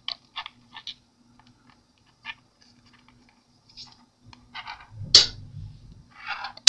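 Small clicks and scratches of paper and fingernails being handled on an LED light pad, then a small magnet snaps into place about five seconds in, a sharp click with a short thud and the loudest sound. A brief rustle and another sharp click follow near the end.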